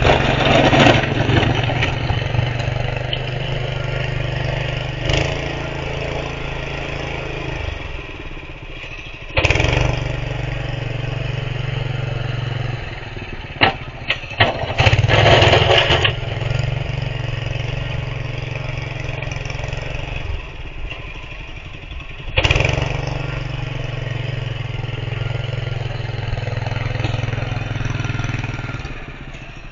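The Honda GX160 single-cylinder engine of a home-built hydrostatic snow plow running steadily while it works. The sound gets suddenly louder twice, about a third of the way in and again about three-quarters of the way through, with softer stretches between.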